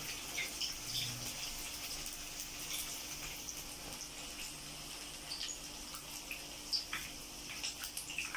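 Mushroom and cabbage batter fritters deep-frying in hot oil: a steady high sizzle with frequent small pops and crackles, and one sharper pop about seven seconds in.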